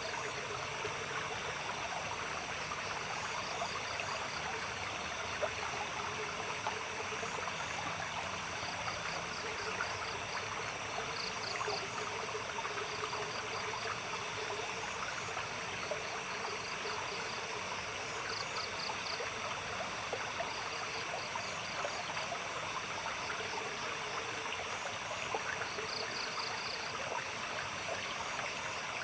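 Steady babbling of a small stream, with night insects: a constant high-pitched drone and short trains of cricket-like chirps that come every few seconds.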